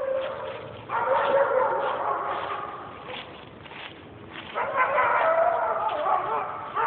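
Two long, wavering voiced calls, each about two seconds, the first starting about a second in and the second about four and a half seconds in.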